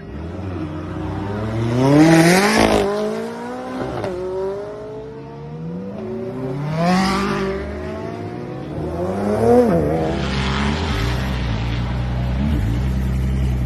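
Red McLaren supercar's engine revving hard three times, the pitch climbing steeply and then falling away on each lift-off. About eleven seconds in it gives way to a Ford GT's twin-turbo EcoBoost V6 idling steadily.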